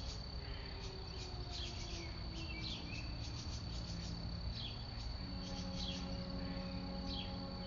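Insects trill steadily and birds chirp during a pause in the fire-house air horns. About five seconds in, the next long blast of the retired 1940s Clark Cooper ship/train horns begins, a low chord of steady tones. It is the fire-call signal, sounded as blasts about six seconds apart.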